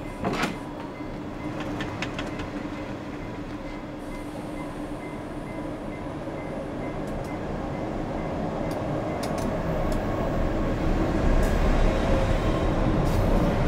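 Passenger train pulling slowly out of the station: a sharp clank just after the start and a few light clicks, then the rumble of the carriages rolling along the rails, growing steadily louder.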